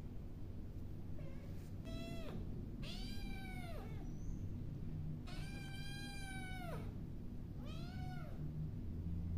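A young domestic cat meowing four times, each meow rising then falling in pitch, the third one long and drawn out.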